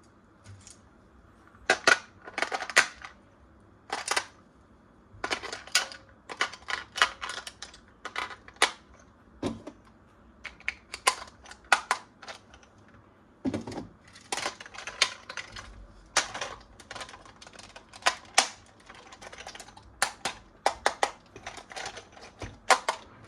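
Irregular clicks and crackles of plastic toy parts and packaging being handled, in short clusters with brief pauses between them.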